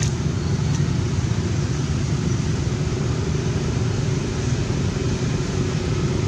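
Steady low rumble with a faint steady hum, like distant engine noise; no single event stands out.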